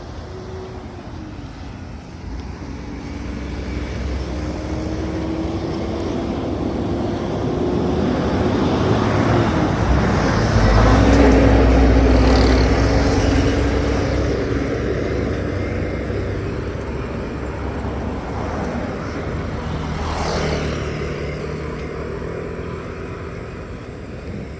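Road traffic: motor vehicles driving past on the road. The engine and tyre noise builds to its loudest as one passes close about halfway through, then fades, with a smaller pass near the end.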